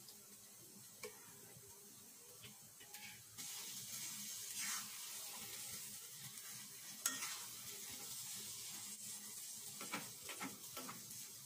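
Thick mango pickle mixture sizzling in a kadai while a steel spatula stirs it, scraping and knocking against the pan. The sizzling comes up about three and a half seconds in, with one sharp knock a little past halfway and a cluster of knocks near the end.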